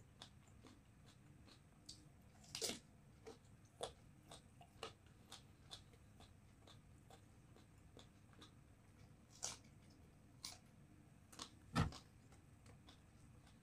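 Faint, close-up chewing of raw vegetables, with scattered crisp crunches and mouth clicks, the strongest about two and a half seconds in. A single dull knock sounds near the end.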